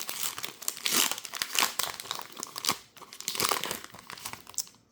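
Foil Pokémon TCG booster pack wrapper crinkling and tearing as it is opened by hand: a dense run of irregular crackles that thins out and stops near the end.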